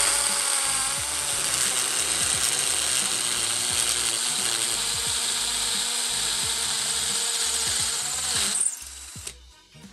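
Ginour 12V cordless drill in hammer (percussion) mode boring a 6 mm Bosch bit into solid brick: a steady, loud drilling noise that stops near the end.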